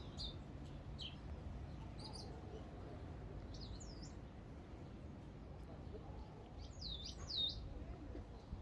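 Small birds chirping with scattered short, high calls, the loudest a pair of swooping chirps about seven seconds in.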